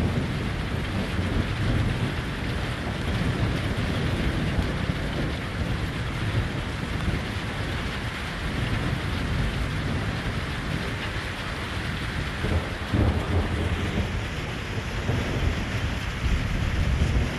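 Rain falling steadily, with low rumbles of thunder swelling about two-thirds of the way through and again near the end.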